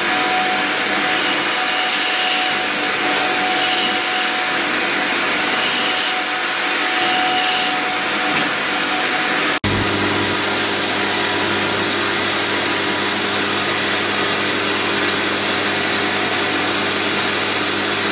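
Handheld rotary carving tools running steadily while their fine bits grind and engrave white nephrite jade. The sound changes abruptly at an edit about two-thirds through, where a steadier low motor hum joins the steady hiss.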